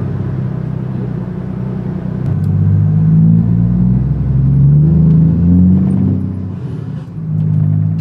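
Scania truck's diesel engine with an open, straight-piped exhaust, pulling away and accelerating. Its note climbs in pitch twice and drops off briefly near the end before picking up again.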